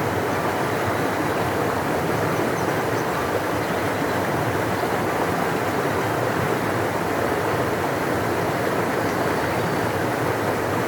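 Large river rushing, a steady deep even roar of flowing water with no breaks.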